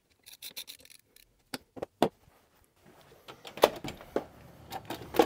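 Scattered light clicks and taps of hands and a screwdriver handling a plastic dome-camera mount. About three seconds in, a faint steady background noise comes in, with a few sharper clicks over it.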